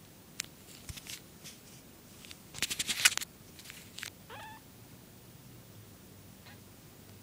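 A young calico kitten gives one short, high mew that rises and falls, about four and a half seconds in. Before it comes a run of rustles and sharp clicks from the kitten being handled and petted on a lap, loudest around three seconds in.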